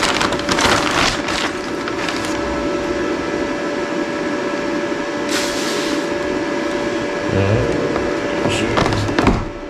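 Clear plastic bag crinkling as a TIG torch and its coiled rubber hoses are pulled out and handled, with rustles near the start and again about five seconds in, over a steady hum.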